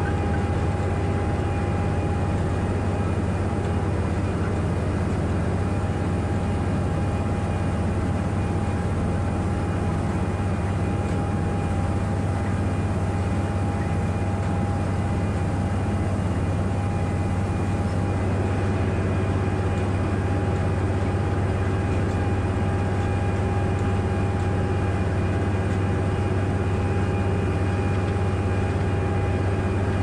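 Dewulf Potato4CE potato harvester and the tractor beside it running steadily at working speed: a constant low engine drone with a steady whine over it.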